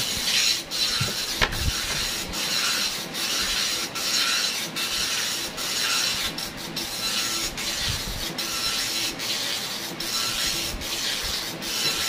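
Epson LX-310 nine-pin dot-matrix printer printing line after line: a rasping buzz from the print head on each pass, with a short break between passes. It keeps printing without stalling, its print head freshly cleaned.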